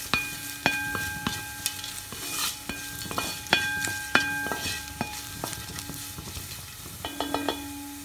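Wooden spatula stirring and scraping sliced onions, curry leaves and mustard seeds frying in hot oil in a metal pan, over a steady sizzle; the spatula knocks against the pan again and again, several knocks setting the pan ringing briefly. This is the tempering for a curry, with the onions browning.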